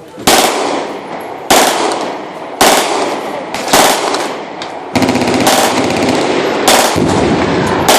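Gunfire from a range's firing line: heavy reports about once a second, each trailing off in a long rolling echo, with a dense crackle of rapid automatic fire running beneath them in the second half.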